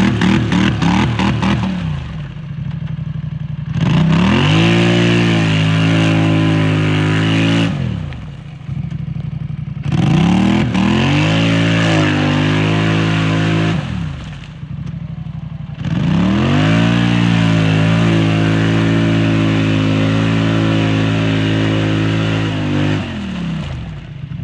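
2018 Polaris Sportsman 850 ATV's parallel-twin engine revved hard three times, each rev climbing, holding high for several seconds, then dropping back. The tires are spinning in deep mud and the quad is stuck, splashing but not going anywhere.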